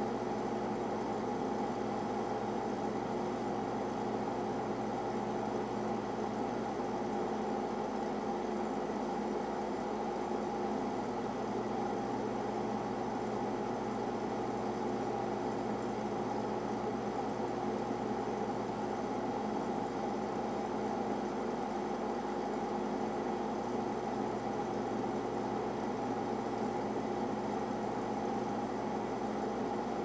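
Boiler room machinery running steadily: a Lynx boiler and its system giving an even mechanical hum with a few constant tones over it.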